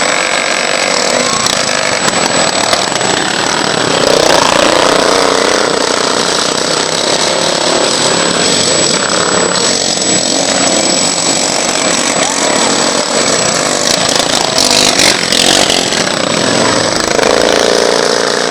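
Racing lawn mower engines running hard at high revs, the pitch rising and falling as the mowers go by.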